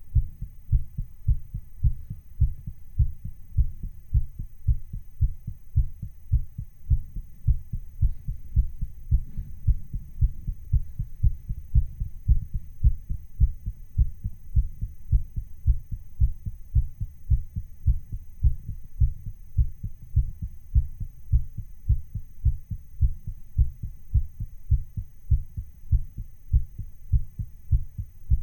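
Recording of a human heartbeat, slightly sped up: a fast, even rhythm of soft, low thumps in lub-dub pairs.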